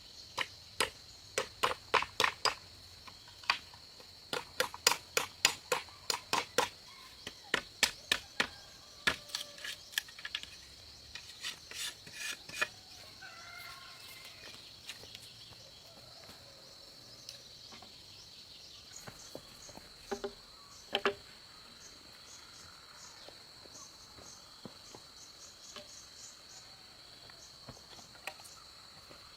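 Quick runs of sharp knocks, roughly two or three a second, for the first dozen seconds, then two more around twenty seconds in: tool strikes on timber. A steady, high cricket chorus runs underneath.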